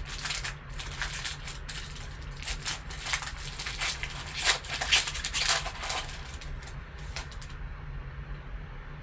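Foil trading-card pack wrapper crinkling and tearing as gloved hands open it, a rapid run of crackles that is loudest about halfway through and eases off near the end.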